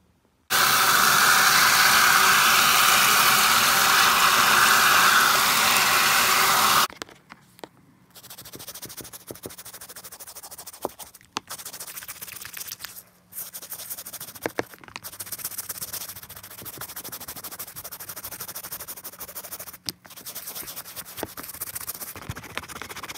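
A loud, steady hiss lasting about six seconds, followed by quieter scratchy scrubbing on a sneaker in several short takes, broken by brief silent cuts.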